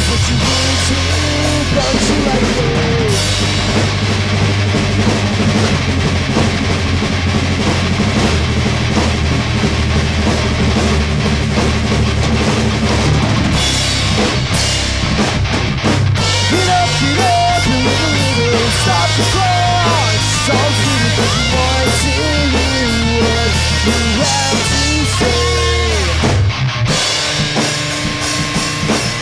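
Loud rock music with a drum kit and guitar, with short breaks between sections.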